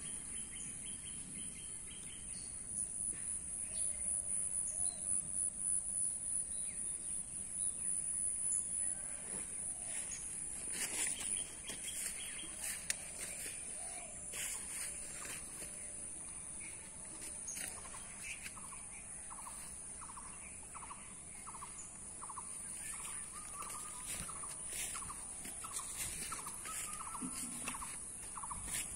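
Outdoor rural ambience among garden plants: a steady high-pitched whine throughout, with bird calls. From a little over halfway in, a short call repeats about twice a second.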